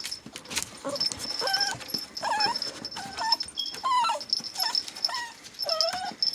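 Dachshund whimpering: a string of short, high, wavering whines, roughly one or two a second, over a thin steady high-pitched tone that starts about a second in.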